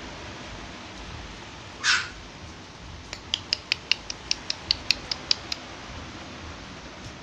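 One-month-old Beagle–Shih Tzu cross puppy squeaking. A short breathy squeal comes about two seconds in, then a quick run of about a dozen short, high-pitched squeaks, roughly five a second.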